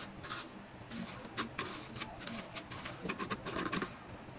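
Dry breadcrumbs rustling and crunching in a plate as a hand presses and turns an egg-coated slice of luncheon meat in them: a run of short, crisp scratchy sounds. A faint low sound sits under them about three seconds in.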